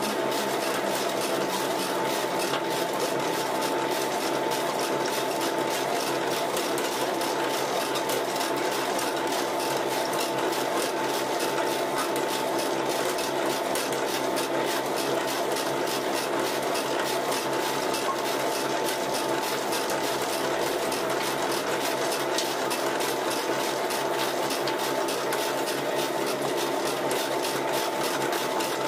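Homemade sawdust pellet mill running steadily under load, with a steady hum and whine from the machine and dense, rapid ticking as pressed pellets drop from the chute into a wheelbarrow.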